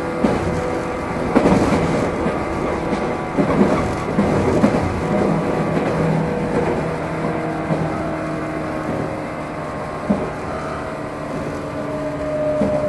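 Japanese 115-series electric train running, heard inside its motor car: steady hum and whine from the traction motors and gears, with sharp clacks as the wheels cross rail joints. Near the end the motor pitch creeps up slightly.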